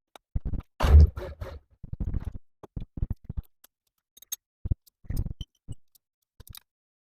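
Irregular knocks and clatter of tools on metal, with a heavier thump about a second in and scattered lighter clinks after.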